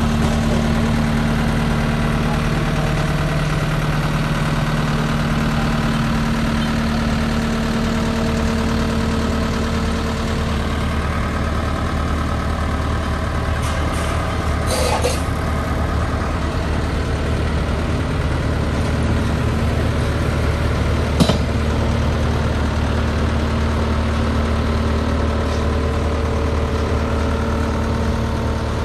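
Cat CS11 GC soil compactor's diesel engine idling steadily. Two brief knocks, about halfway through and about three-quarters through.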